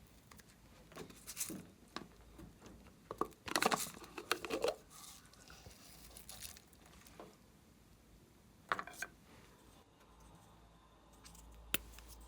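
Glossy slime being worked by hand: irregular bursts of sticky crackling and squelching, loudest about four seconds in, with a single sharp click near the end.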